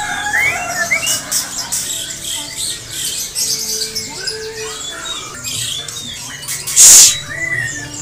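Many caged songbirds chirping and whistling at once, short calls and quick pitch glides overlapping. About seven seconds in comes one loud, harsh squawk lasting about half a second.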